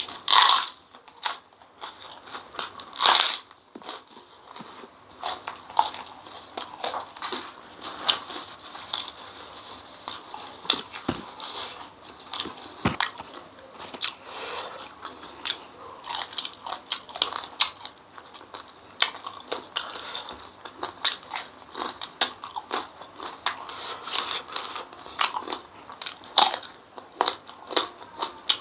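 A person eating close to the microphone: two loud crunching bites, one right at the start and one about three seconds in, then steady chewing with many small clicks and crackles.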